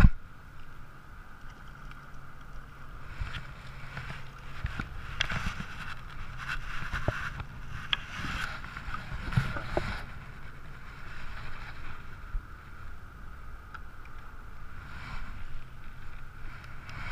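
Low, muffled rumble of wind and water on an action camera in its housing, with scattered small clicks and knocks.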